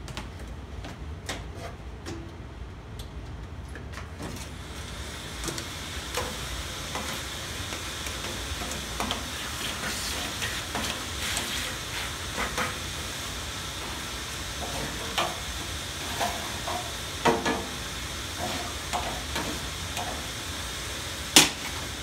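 Miele canister vacuum cleaner running with a steady rushing hiss as its hose nozzle sucks dirt out of an old box fan's motor bay. The hiss grows stronger about four seconds in. Scattered clicks and knocks sound over it, with one sharp knock near the end.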